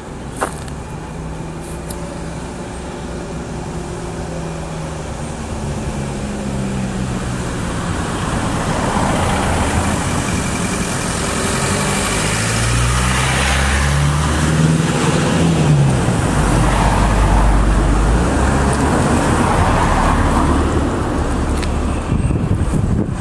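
Class 205 'Thumper' unit's English Electric four-cylinder diesel engine running, growing steadily louder, its note rising and falling several times in the second half. A single sharp knock sounds near the start.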